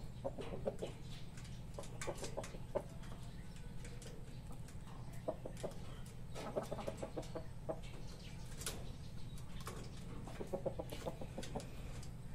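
Chickens clucking in short rapid runs, about four times, with scattered sharp taps, over a steady low hum.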